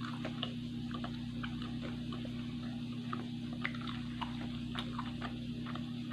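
Soft chewing and small wet mouth clicks of someone eating a fried risole, scattered irregularly over a steady low hum.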